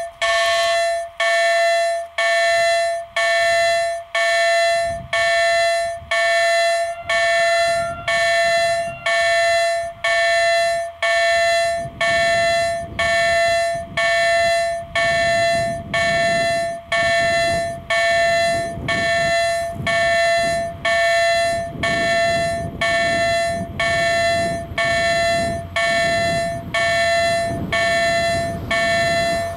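Level-crossing warning bell from an EHL-S08 loudspeaker, driven straight by a Bombardier sound generator because the speaker's own electronics failed. It strikes a ringing electronic bell tone about once a second, each stroke dying away, while a low rumble builds in the second half.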